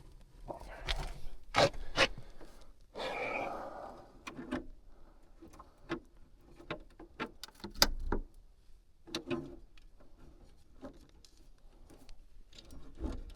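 Scattered clicks, taps and rustling from hands working wiring and tools, with a longer rustle about three seconds in.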